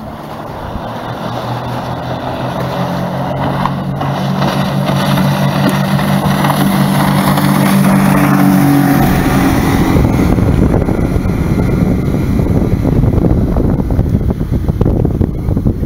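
A 50 hp outboard motor on a 13 ft aluminium boat running flat out, growing louder as the boat closes in and sweeps past close by about eight or nine seconds in. After that the engine tone fades under rushing wind on the microphone and splashing wake water.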